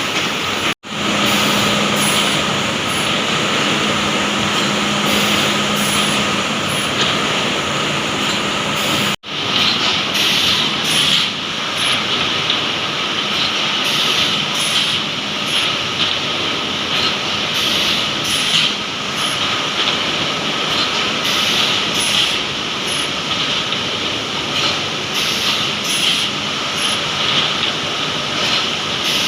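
Woodworking machinery on an MDF board line running steadily: a loud, constant mechanical noise with a steady hum. The sound drops out briefly about a second in and again about nine seconds in, and a lower hum present before the second drop-out is gone after it.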